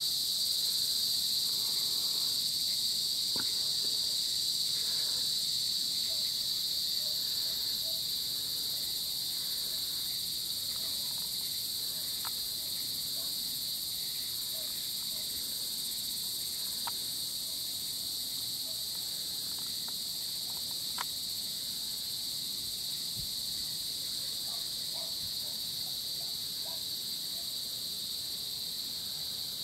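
Insect chorus at dusk: a steady, high-pitched drone at several pitches at once, easing slightly in level over the first several seconds, with a few faint clicks and chirps underneath.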